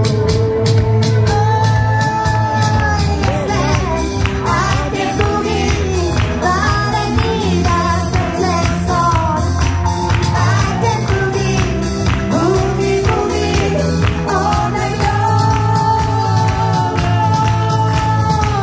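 Woman singing a pop song over a backing track with a steady beat, holding long notes a couple of seconds in and again near the end.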